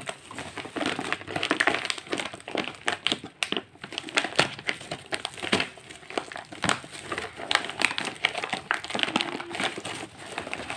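A plastic courier mailer and the bubble wrap inside it crinkling and rustling as hands tear the mailer open and pull the wrapped package out, with irregular crackles throughout.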